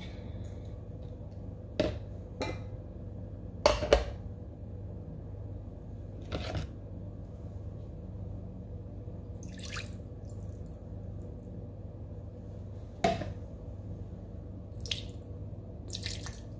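Scattered light clicks and knocks of utensils and containers being handled, about eight over the stretch, the loudest about four seconds in and again near thirteen seconds, over a steady low hum.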